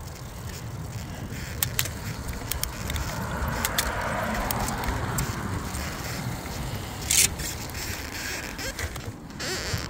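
Touring bicycle riding along a highway shoulder, heard from a handlebar-mounted phone: steady wind rumble on the microphone and road noise, with scattered light clicks and rattles from the bike and a louder rattle about seven seconds in.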